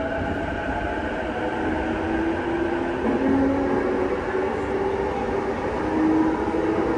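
Interior running sound of a JR East E233-7000 series electric train in a tunnel: steady rumble of wheels on rail with the traction motors' whining tones, which step to new pitches a few times.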